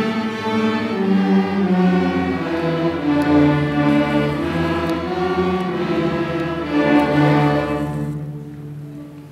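Sixth-grade student string orchestra playing, violins bowing sustained notes; the piece ends on a held final chord that dies away about eight seconds in.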